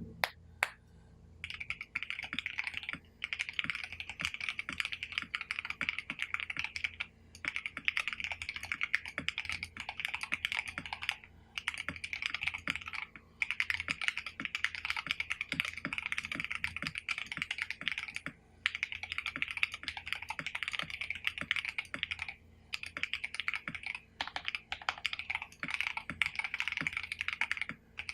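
Fast typing on a Redragon Fizz mechanical keyboard with lubed Akko CS Jelly Black linear switches and XDA keycaps, its case dampened with foam, felt and tape. The keystrokes come in quick runs of a few seconds, broken by short pauses.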